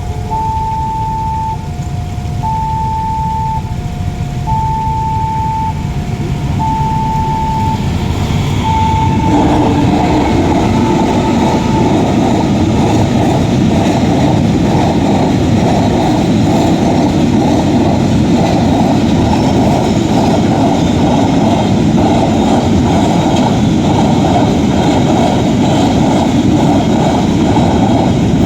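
A railway level crossing's warning signal sounds a repeating two-note alarm, high then low. About ten seconds in, a train passes close by, its wheels clattering rhythmically over the rails and drowning out the alarm.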